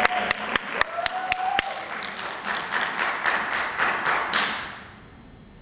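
Audience applauding, with some loud, sharp individual claps close by. The applause dies away about five seconds in.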